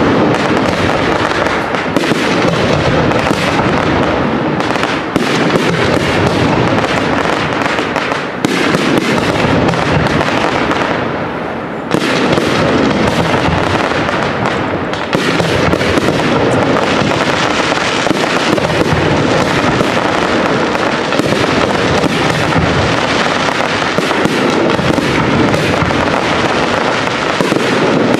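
Large professional fireworks display: a dense, continuous barrage of aerial shell bursts in rapid bangs, easing briefly about ten seconds in before a sharp burst restarts the barrage about twelve seconds in.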